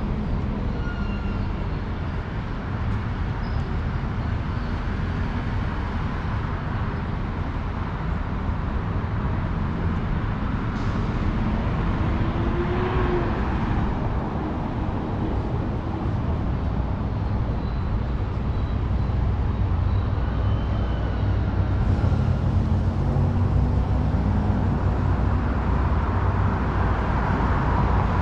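Downtown street traffic: a steady low rumble of cars driving by, swelling as vehicles pass about halfway through and growing louder over the last few seconds.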